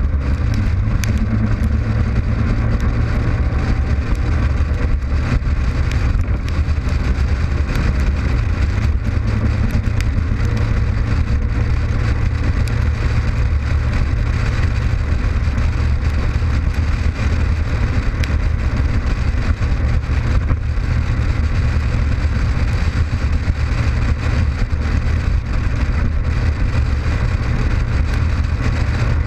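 Honda ST1100 Pan European's V4 engine running at a steady highway cruise, a constant low drone mixed with the rush of wind and road noise.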